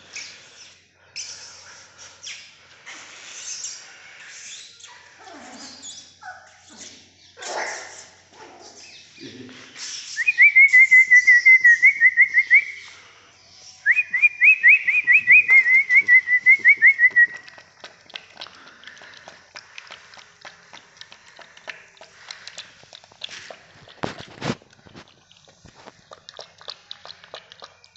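Two runs of a loud, quick trilled whistle, each a few seconds long, made of rapid falling chirps. After them a puppy laps milk from a steel bowl with fast small clicks, and the bowl knocks once near the end.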